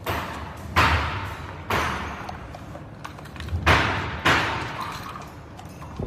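Five sharp knocks at irregular intervals, each dying away over about half a second.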